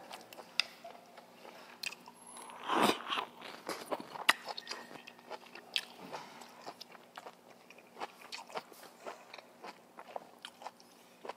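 Close-up eating sounds: chewing and biting, with many small sharp clicks and crunches and one louder mouth sound about three seconds in.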